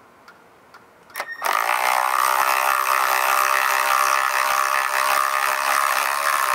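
Milwaukee M12 cordless 3/8-inch ratchet's motor starting about a second in and running steadily as it backs a screw out of wood. It struggles at first with a buzzing, then catches and unscrews the screw.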